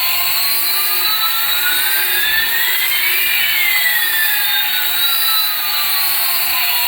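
Jet-engine-style whooshing hiss with a whistling tone that rises for about three seconds and then falls back down over the next three.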